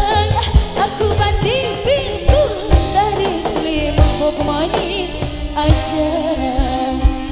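Live band music, a woman singing lead through a microphone over electric guitars, bass and drum kit, with regular drum hits under the melody; a little past halfway a held note comes in under the voice.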